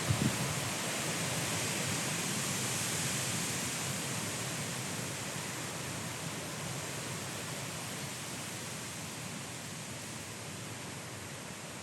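Strong gusty wind, a steady rush of noise that eases off slowly, with a few low buffets on the microphone right at the start.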